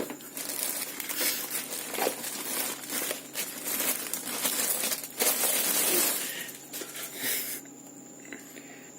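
Packaging of a VR headset being opened and handled by hand: dense rustling with many small clicks and scrapes, which stops about three quarters of the way through.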